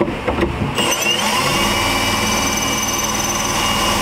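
Cordless drill spinning up with a short rising whine under a second in, then running steadily as it bores through a mounting pad's hole into the fiberglass canopy roof to mark the hole pattern.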